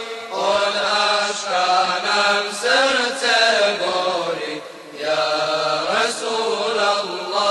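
An ilahija, a Bosnian Islamic devotional song, sung by voices in a chanting style, in long melodic phrases with a short break about two-thirds through.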